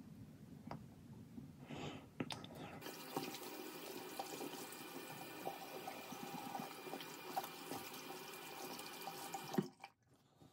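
Bathroom sink faucet running steadily into the basin. It is turned on about three seconds in and shut off near the end, with a few small clicks before it starts.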